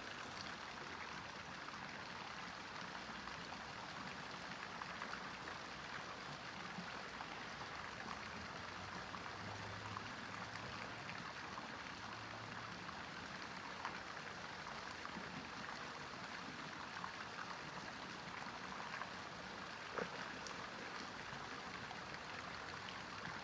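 Faint steady hiss of background noise, with a few soft clicks.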